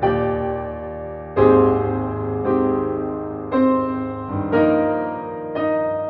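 Slow piano music: a chord struck about once a second, each one left to ring and fade before the next.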